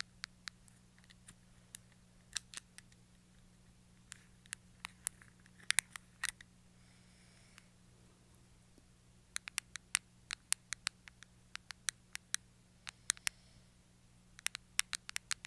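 Sharp, close-miked clicks and pops made with the hands, coming irregularly in clusters, with a quick run of them in the middle stretch.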